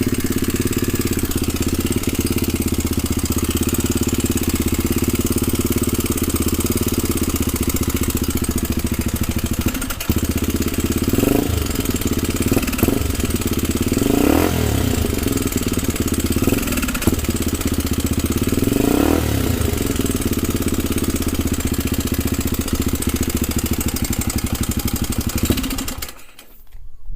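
Honda RFVC single-cylinder four-valve engine idling with an abnormal mechanical noise, the common kind for this engine, which remains although the tappet clearance has been set correctly. The throttle is blipped about five times in the middle, and the engine shuts off near the end.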